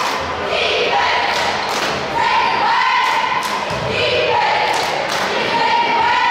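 Repeated thuds and knocks on a hard floor in a large room with reverberation, over loud, sustained shouting voices.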